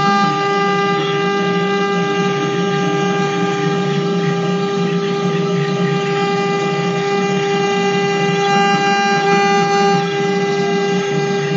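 Small CNC engraving machine's spindle motor running with a steady whine as its fine bit carves a relief into a wooden board.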